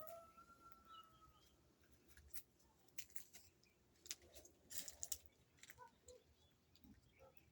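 Near silence with faint distant bird calls, a thin held whistle at the start and a few brief chirps, broken by scattered light clicks and taps.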